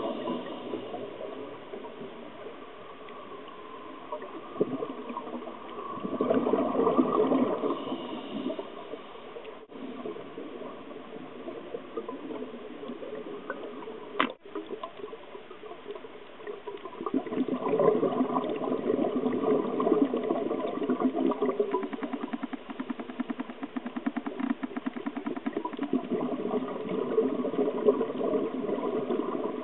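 Underwater camera sound of scuba exhalation: bubbles from a diver's regulator bubbling in bursts lasting a few seconds, with quieter stretches between. Two short clicks break the sound about ten and fourteen seconds in.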